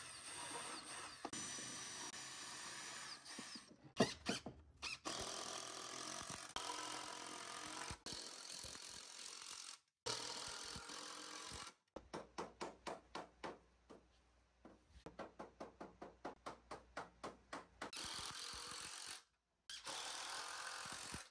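Cordless drill and impact driver running in several short bursts as screws are driven into wood. Steady runs alternate with stretches of rapid, evenly spaced pulsing in the second half.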